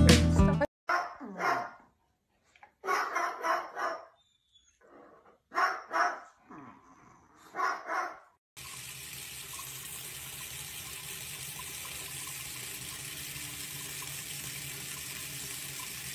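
Barking in four short bouts, about two seconds apart. Then, about halfway through, a kitchen tap starts running into a stainless steel sink: a steady rush of water.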